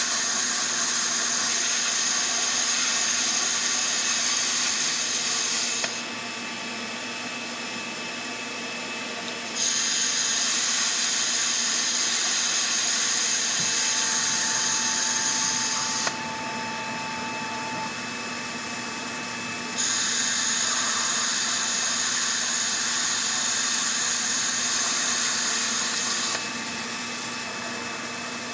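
Handheld plasma cutter cutting sheet metal: a loud, steady hiss of the arc and air that starts and stops three times, each cut lasting about six seconds. A quieter steady hum fills the pauses between cuts.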